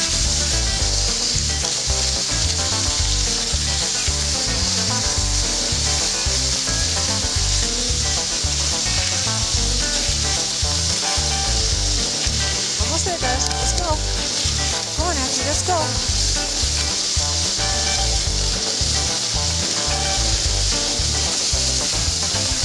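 Dog sled runners hissing steadily over packed snow, with wind buffeting the microphone in constant low thumps. A few brief squeaks about halfway through.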